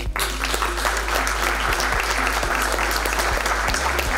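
Audience applauding: many hands clapping together, steady and dense, starting right after the speech ends.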